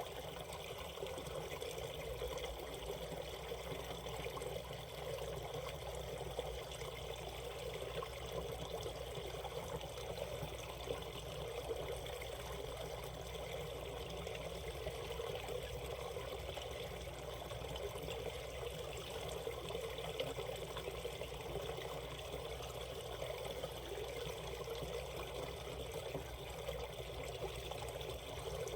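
Mountain stream water flowing over the rocks of a shallow rapid, a steady babbling rush that keeps on without change.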